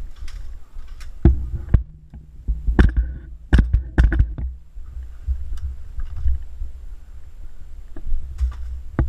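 A player's footsteps and brushing through leaf litter and undergrowth, picked up by a helmet-mounted GoPro as a steady low rumble. Several sharp clicks and knocks come between the first and fifth second, with another near the end.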